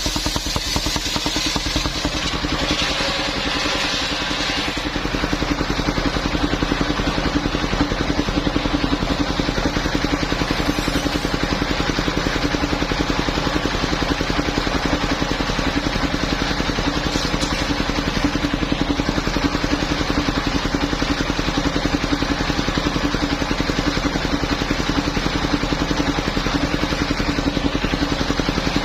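Engine of a portable circular sawmill running steadily, with a brighter hiss over it for the first few seconds.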